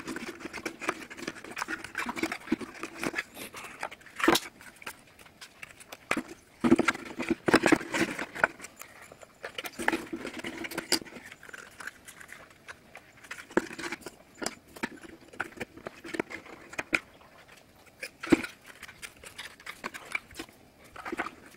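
Cardboard 3D puzzle pieces being handled and pressed together on a table: scattered taps and clicks with stretches of rubbing and scraping as tabs slide into slots. The sharpest taps come about 4, 7 and 18 seconds in.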